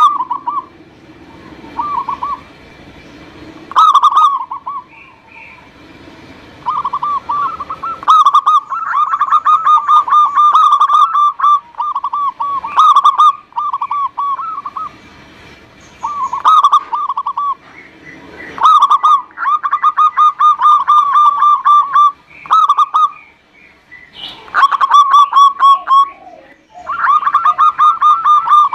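Zebra dove (perkutut) cooing: repeated phrases of rapid, rolling staccato coos, separated by short pauses.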